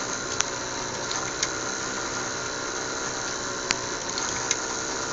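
Steady mechanical hum and hiss with several faint steady tones, broken by four short, sharp clicks spread through it.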